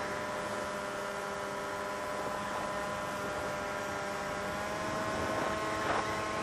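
FPV quadcopter's motors and propellers running with a steady whine over a hiss, with a brief surge a little before the end.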